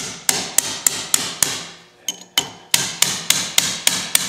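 Steel hammer striking a punch in quick, even blows, about three a second with a short pause midway, each blow ringing sharply. The blows drive a press-fit part down onto the nose of a Porsche 356 crankshaft.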